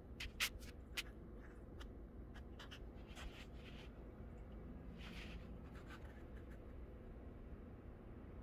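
Faint handling noise from a hand-held phone as it pans: a few sharp clicks in the first second, then soft scratchy brushing sounds about three and five seconds in, over a low steady rumble.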